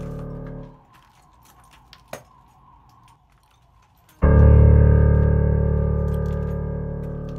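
Background music: a held keyboard chord of several steady tones cuts off under a second in, followed by a quiet stretch with faint clicks, and then a new chord strikes suddenly about four seconds in and slowly fades.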